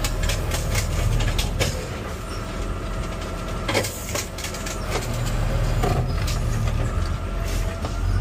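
Garbage truck's diesel engine running, with scattered knocks and clanks; the truck moves off toward the end.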